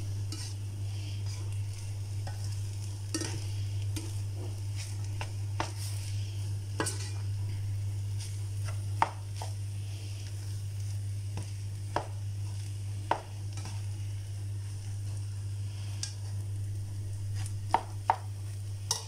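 Plastic rice spatula stirring and scraping cooked rice with fried onions around a hot non-stick frying pan, with irregular taps against the pan over a light sizzle. A steady low hum runs underneath.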